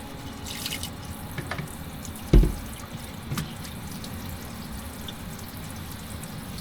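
Steady splashing of water, with a few light clicks and one dull thud about two and a half seconds in.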